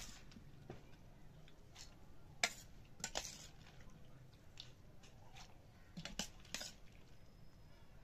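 Steel spoon stirring and scooping coarsely ground, soaked dal in a stainless steel pot: soft squishes with scattered clinks and scrapes of the spoon against the pot. The sharpest clink comes about two and a half seconds in.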